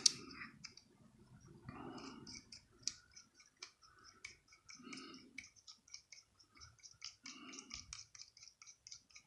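Light, irregular ticking and clicking of small metal parts as a spinning reel is reassembled by hand, a small screwdriver working at the rotor.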